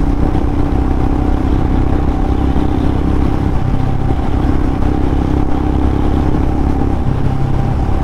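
Motorcycle engine running at a steady highway cruise, a constant hum under a heavy rush of low wind noise.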